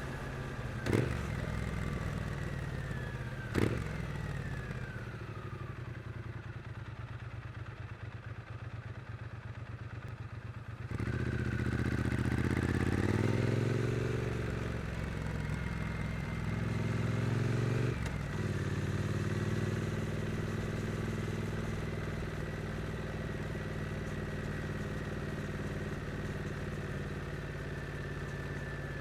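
Triumph Street Twin's 900 cc parallel-twin engine running at low revs, with two sharp clicks in the first few seconds. About eleven seconds in it pulls away, the revs rising and falling back twice as it shifts up, then it settles into a steady cruise.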